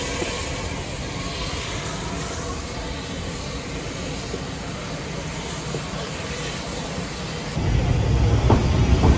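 Steam-hauled passenger coaches rolling out along the rails, a steady rumble with light clicks and a hiss of steam. Near the end the sound switches abruptly to a much louder low rumble.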